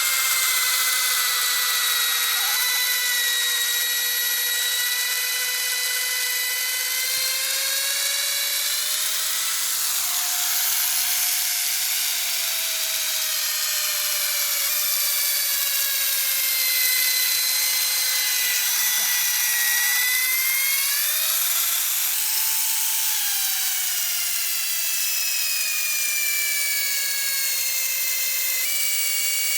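Power drill boring into a wood stump: a continuous high motor whine that rises in pitch twice and sinks back again.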